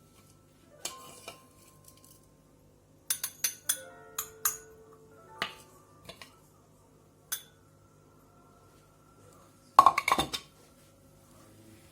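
Kitchen utensils clinking against dishes: scattered light taps, a quick run of clinks with a short ringing note about three to five seconds in, and a louder clatter about ten seconds in.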